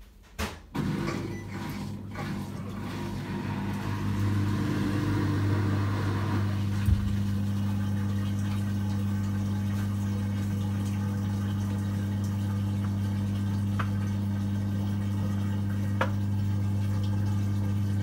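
Toshiba top-load washing machine starting its spin cycle and draining: a steady electric hum with water rushing out of the tub, growing over the first few seconds and then holding level. The water is now draining through the repaired drain.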